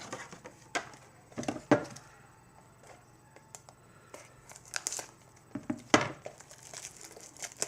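Wrapper of a baseball card pack crinkling and tearing as it is opened, with scattered sharp crackles and clicks. The loudest are about two and six seconds in, with a quieter stretch between.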